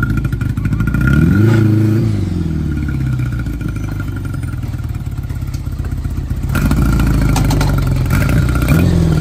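A motor vehicle engine running steadily with a short rev about a second and a half in, its pitch rising and falling back. Another rev comes near the end, with some rattle.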